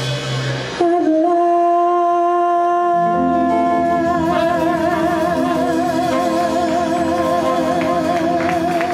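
Live band playing, with a singer holding one long high note that starts just under a second in and gains vibrato as it goes on. Bass and chords come back in about three seconds in. It sounds like the closing note of a song.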